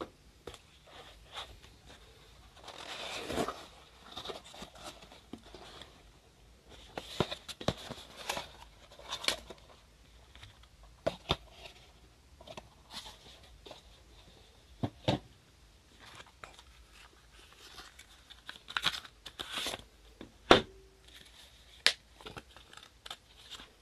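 Cardboard box being opened and handled: scattered scrapes, taps and sharp knocks of cardboard, with a longer rustle a few seconds in and one louder knock near the end. A paper instruction sheet rustles as it is handled at the very end.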